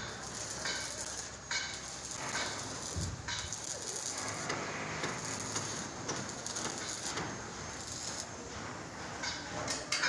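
Building-site noise: a steady hiss with knocks and clatters every second or so, at irregular intervals.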